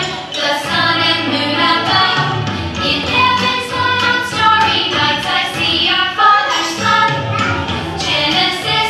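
A children's Bible song about the days of creation: voices sing over a steady musical backing.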